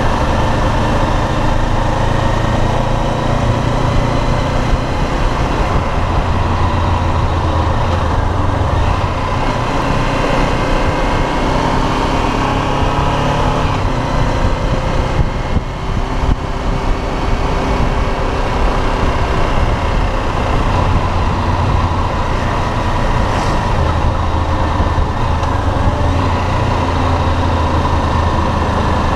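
Sport motorcycle's engine running steadily under way, with road and wind noise over it. The level dips briefly about halfway through.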